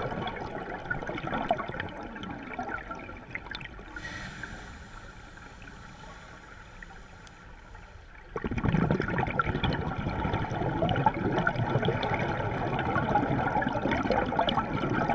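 Muffled water gurgling and sloshing, recorded underwater, quieter for a few seconds and then suddenly louder about eight seconds in.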